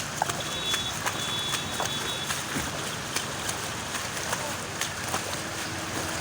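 Steady wash of floodwater and rain noise with scattered sharp splashes and background voices. A high steady tone sounds twice in the first two seconds.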